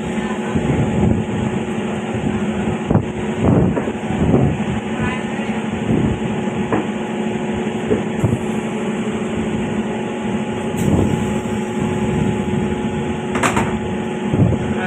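Moving train heard from on board: a steady running rumble with a constant hum, broken by occasional knocks from the wheels and carriage.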